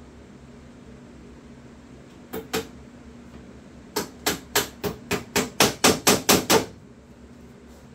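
A hammer tapping small tacks into wood: two taps, then a run of about ten quick taps, roughly four a second, growing louder.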